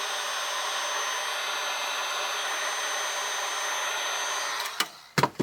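Handheld hot-air blower running steadily with a faint high whine, reheating the iPad's glass to soften the adhesive around the home button. It cuts off about four and a half seconds in, followed by a couple of sharp clicks.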